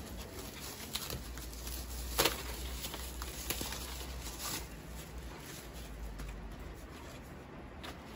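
Plastic wrapping rustling and crinkling as a hot-air tool handle is unwrapped by hand, with scattered small clicks and one sharp click about two seconds in.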